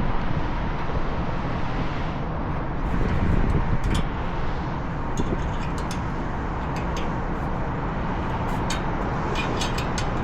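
Steady outdoor rumble of wind and running rooftop equipment with a faint steady hum, broken by a few light clicks and clinks of hand tools on metal, several near the end.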